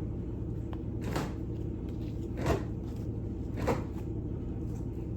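Gooey slime being stretched and squished by hand, with three short sticky pops about a second and a half apart over a steady low background hum.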